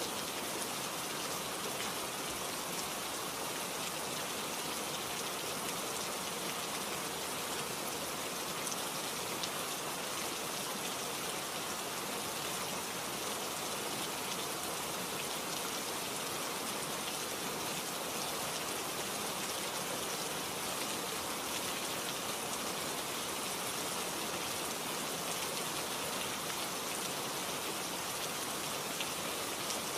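A steady, even hiss like falling rain.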